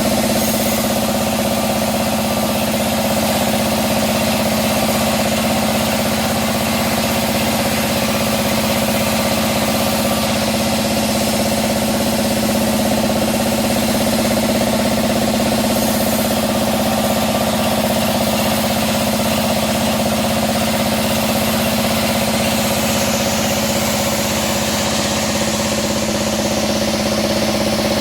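Sawmill bandsaw running with a steady, unbroken hum.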